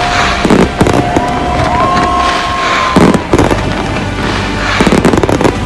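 A fireworks display: a run of sharp bangs and crackling bursts, with music playing throughout.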